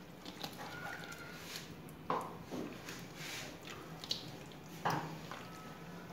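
Hands squishing a wet green masala marinade into whole scored fish in a bowl, faint and irregular, with two louder squelches about two and five seconds in.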